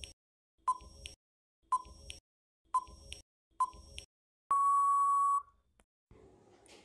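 Electronic countdown timer beeps: four short beeps about a second apart, then one long, level beep lasting about a second that marks the end of the countdown.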